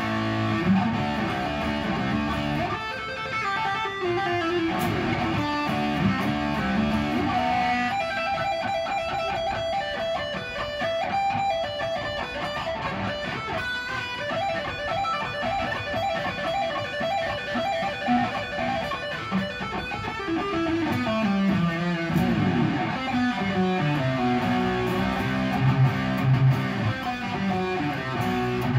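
Ibanez electric guitar played solo: a continuous stream of single notes and riffs, moving into a higher register through the middle and dropping to lower notes in the last third.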